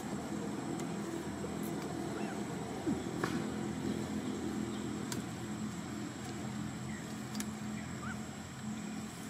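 Steady low hum of a motor running, with a few faint clicks and a handful of short, high rising chirps.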